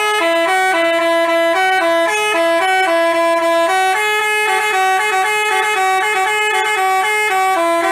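Telolet basuri multi-tone bus horn playing a fast melody: two horn notes sound together and step between pitches several times a second.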